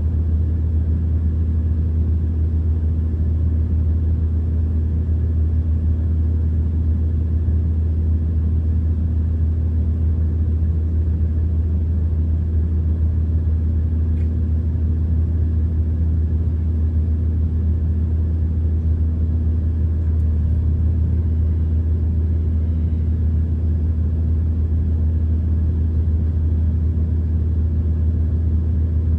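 Steady low drone and rumble of a class 170 Turbostar diesel multiple unit running, heard from inside the passenger saloon.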